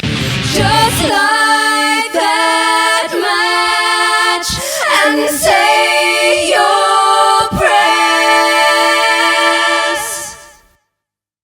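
The full band cuts off about a second in, leaving unaccompanied layered female voices singing sustained chords in harmony, changing chord every second or so. The voices fade out shortly before the end, leaving silence.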